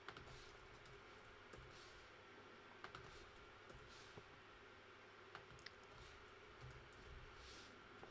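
Faint, irregular keystrokes on a computer keyboard as code is typed, over a low steady room hiss.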